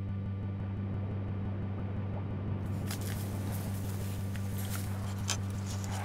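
A steady low hum under faint background noise, with a few soft clicks in the second half.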